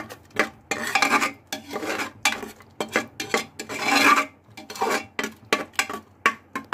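Metal spoon scraping and stirring thick tomato-onion masala in a metal pressure cooker: a quick run of rasping strokes across the pot's base, with clinks of the spoon against the metal.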